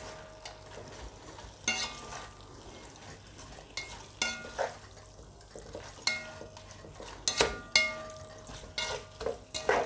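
Plastic slotted spatula stirring and scraping lamb, carrots and onion in a metal pot, with a faint sizzle from the frying. Several irregular sharp scrapes and knocks against the pot, some leaving a brief metallic ring.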